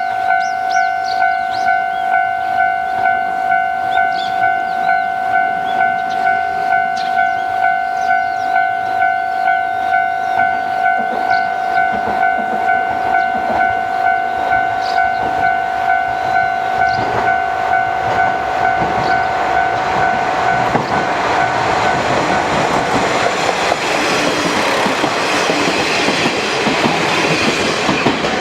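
Japanese level-crossing warning bell ringing its steady electronic 'kan-kan' at about one and a half strikes a second, while a train approaches and passes over the crossing, its rumble and wheel clatter building from about two-thirds of the way in until it drowns out the bell.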